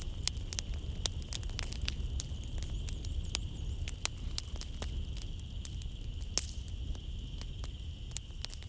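Wood fire crackling in a fireplace: irregular sharp pops and snaps over a low, steady rumble of burning. A constant high chirring of night insects runs behind it.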